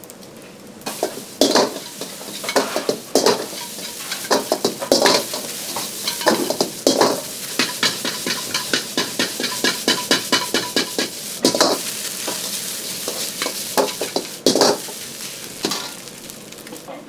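Fried rice sizzling in a wok over a gas flame while a metal ladle repeatedly strikes and scrapes the wok as the rice is stirred and tossed, with a quick run of ladle taps in the middle.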